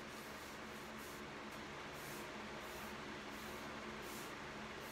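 A cloth rag wiping wipe-on polyurethane onto a plywood block: a run of soft, hissy swishes, one with each stroke, over a faint steady hum.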